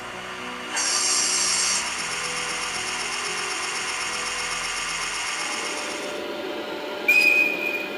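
Electric-locomotive sound effects from a KATO Sound Box, played through the HO EF81 model's onboard speaker. A sudden burst of air hiss comes about a second in, then a steady high whine. A short, loud, high whistle tone sounds near the end.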